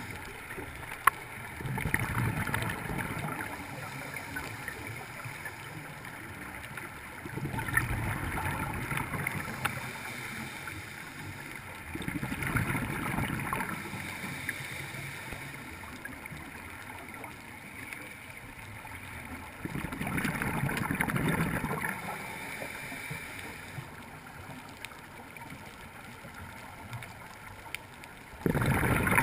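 Scuba diver breathing underwater through a regulator: five bursts of exhaled bubbles, each about two seconds long, coming every five to eight seconds, with a quieter hiss between them.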